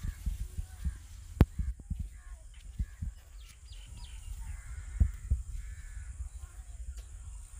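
Birds calling faintly over a steady low rumble, with a few sharp knocks, the loudest about a second and a half in and again about five seconds in.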